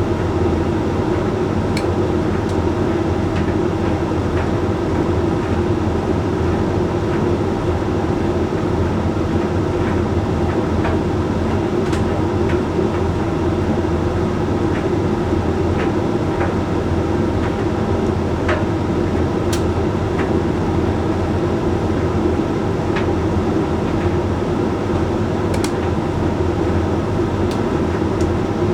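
Hoover Link X Care HLX C10DRGR condenser tumble dryer running mid-cycle on a Whites drying programme: a steady drum-and-fan hum, with occasional light clicks scattered through it.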